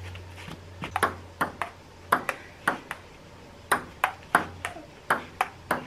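Table tennis rally: a plastic ping-pong ball clicking back and forth between the paddles and an outdoor table, a steady run of sharp clicks about two to three a second.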